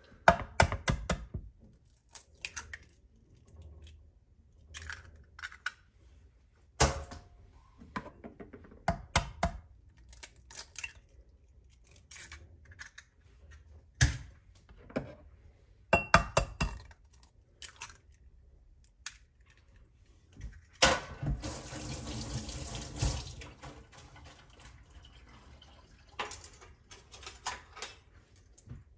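Kitchen work sounds: scattered knocks and clinks of utensils and dishes, and a sink tap running for about two seconds around two-thirds of the way through.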